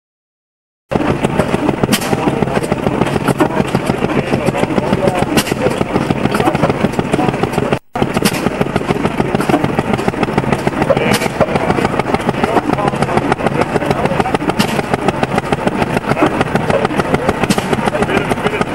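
An engine running steadily, loud and close, starting about a second in; it drops out for a moment near the middle and resumes.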